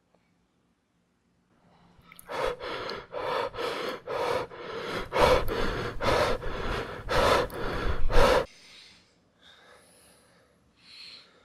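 A man breathing hard and fast in quick gasps, about two or three breaths a second and growing louder, which cut off suddenly about eight seconds in; fainter breaths follow.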